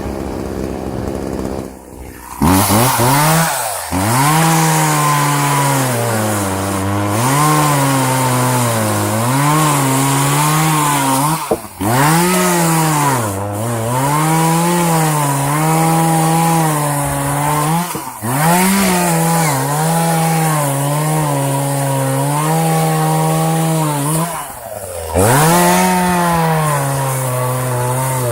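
Chainsaw engine running at high revs while cutting through the wood of a felled tree. Its pitch sags under load as the chain bites and recovers between cuts, dropping back briefly four or five times. The first couple of seconds are quieter before the saw is opened up.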